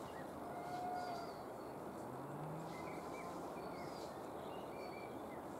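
Outdoor ambience: a steady rushing background noise with faint, scattered bird chirps.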